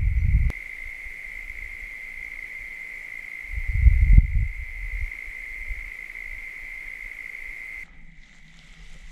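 Steady high-pitched chorus of calling insects, dropping in level near the end. Low rumbles on the microphone at the start and again about four seconds in, and a single click about half a second in.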